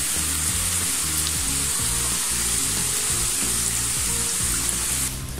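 Sliced onions sizzling steadily in hot oil, fried to a deep brown, with soft background music underneath. The sizzle cuts off just before the end.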